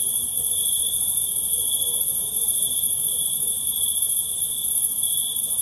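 Crickets trilling continuously: a steady high-pitched trill with a still higher, shimmering insect hiss above it.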